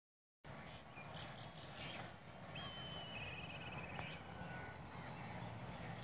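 Silence for the first half second, then open-field ambience: a steady high insect drone over a low rumble, with a bird's short trilled call about two and a half seconds in.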